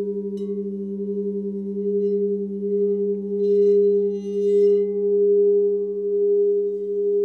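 Sound-healing drone of sustained pure tones at the 432 Hz and 528 Hz healing frequencies, singing-bowl-like and steady, slowly swelling and ebbing in loudness. Faint high ringing notes sparkle briefly about halfway through.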